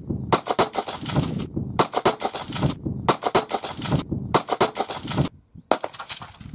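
Rifle gunfire: five loud bursts, each a quick run of sharp cracks lasting about a second that cuts off abruptly.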